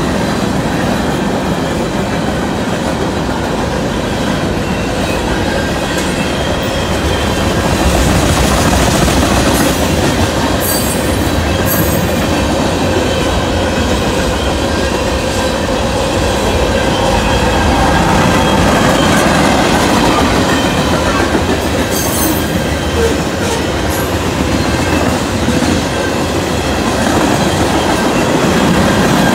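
Freight train cars rolling steadily past a grade crossing: a continuous rumble and clatter of steel wheels on the rails, with a few short high-pitched squeaks about ten seconds in and again a little past twenty.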